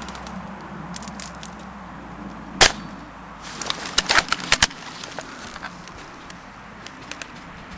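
Airsoft gunfire: one sharp report about two and a half seconds in, then a quick run of four or five sharp cracks about a second and a half later.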